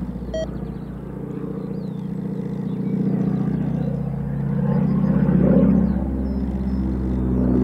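Noorduyn AT-16 Harvard's nine-cylinder Pratt & Whitney R-1340 Wasp radial engine and propeller droning as the aircraft flies overhead. The drone is steady, then swells to its loudest about five and a half seconds in.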